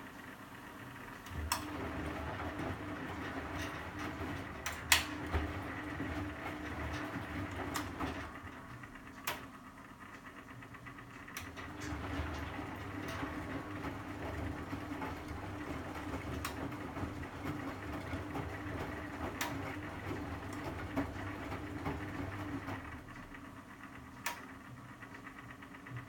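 Bendix 7128 washing machine turning its drum during the wash: the motor starts about a second in, runs for several seconds, stops briefly, then runs again and eases off near the end. A few sharp knocks come through, the loudest about five seconds in.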